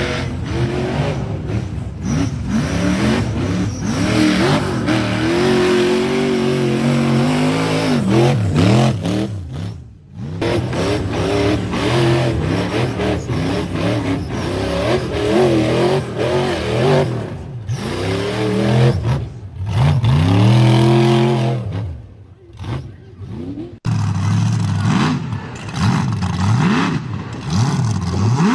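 Side-by-side UTV engines revving hard, pitch repeatedly rising and falling under throttle, across several short clips. The sound changes abruptly about ten seconds in and again near the end.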